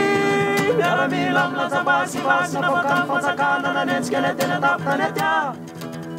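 Several young men's voices singing a Malagasy song together in harmony, with acoustic guitars. A held chord gives way to a wavering, ornamented lead line, which falls away near the end.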